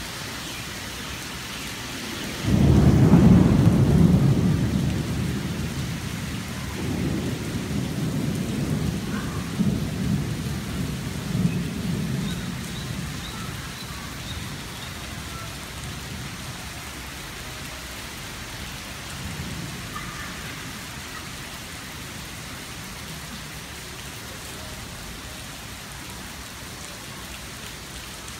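Heavy rain falling with a steady hiss. A sudden low rumble of thunder breaks in about two and a half seconds in and rolls on for a few seconds, a second long roll follows from about seven to twelve seconds in, and a fainter rumble comes near twenty seconds.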